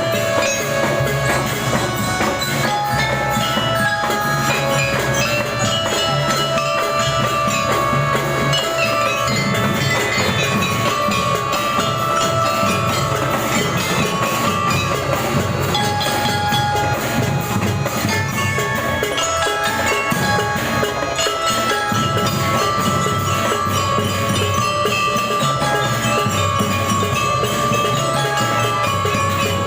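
Marching band playing a tune continuously, a glockenspiel (bell lyra) melody carried over drums.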